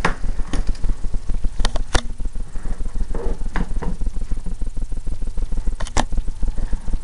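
Handling noises as collector's-edition items are moved about on a table: a few sharp clicks and knocks, near two seconds in, about three and a half seconds in and near the end. Under them is a steady, fluttering low hum.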